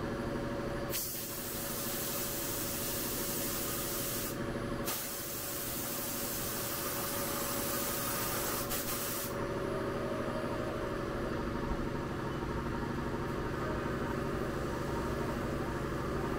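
A CNC milling machine runs with a steady hum, and from about a second in a compressed-air blow gun hisses in two long blasts, with a short break around four seconds in, clearing chips and coolant off the aluminum part in the vise. After about nine seconds the hissing stops and the mill runs on alone.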